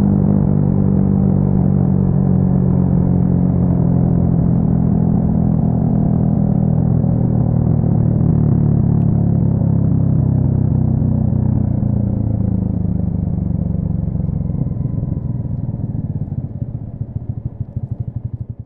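Yamaha XSR155's single-cylinder engine running steadily through an aftermarket full exhaust system, fading out over the last several seconds.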